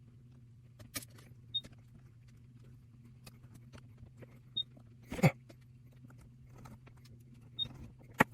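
Computer parts being handled: scattered clicks and taps over a steady low hum. A short high beep repeats about every three seconds, and there is one louder knock about five seconds in.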